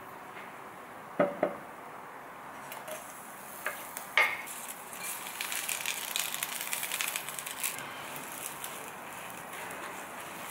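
A silicone spatula knocks a few times against a frying pan. Then salted egg yolk sauce sizzles and crackles louder as fresh chillies and curry leaves drop into the hot pan and are stirred in, and the crackle eases off near the end.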